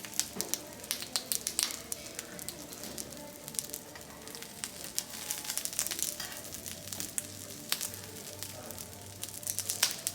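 Food sizzling on a teppanyaki griddle, with a steady frying hiss and frequent crackling pops of spitting oil.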